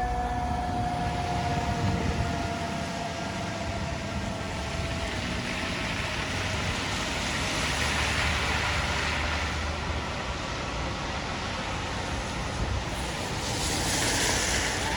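Fire truck's mechanical siren winding down, its wail falling slowly in pitch and fading out over the first few seconds. It leaves the running noise of the truck and street traffic, with a brief louder burst of hiss near the end.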